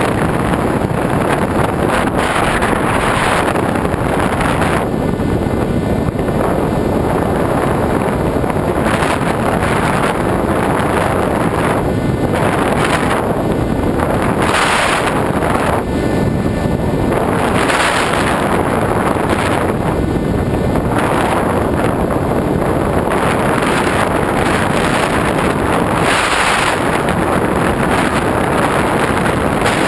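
Wind rushing over the microphone of a camera riding on an RC glider in flight, a steady loud noise whose hiss swells and eases every few seconds.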